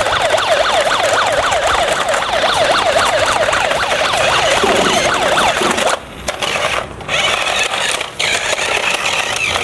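Electronic police siren in a fast yelp: its pitch sweeps down and back up about four times a second. About six seconds in it breaks off in several short gaps.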